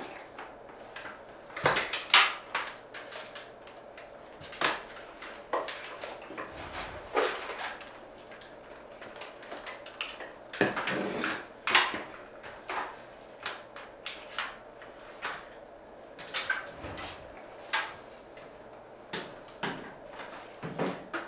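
Irregular knocks, clicks and clatter of small hard objects being handled and set down, over a faint steady hum.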